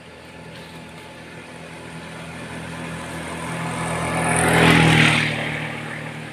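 A motor vehicle passing by: its engine noise swells to its loudest about five seconds in, then fades away.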